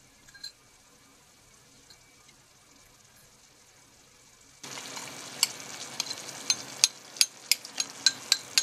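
Quiet at first with a few faint clicks, then about four and a half seconds in a sizzle starts suddenly as potato-starch water hits the hot frying pan of vegetables, with repeated sharp clicks of a utensil against the pan as it is stirred.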